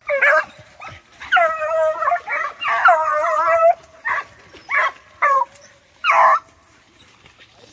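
Hunting hound baying while trailing a paca: a short bark, two long drawn-out howling bays, then four shorter barks.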